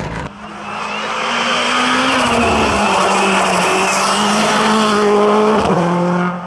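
Hillclimb race car at full throttle, its engine note swelling over the first couple of seconds and then holding, with tyre squeal over it.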